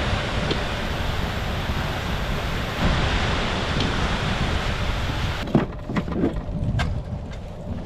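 Blizzard wind blowing hard across the microphone as a loud, steady rush. About five and a half seconds in it drops to a quieter rumble, with a few sharp knocks.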